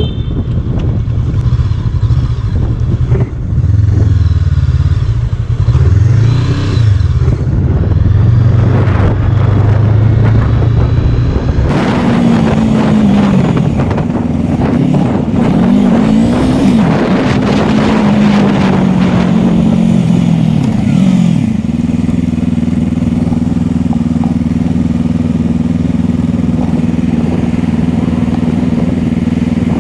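Motorcycle engine heard from the rider's helmet camera. Its note rises and falls with the throttle during slow riding, then settles to a steady note for the last several seconds while the bike sits in traffic.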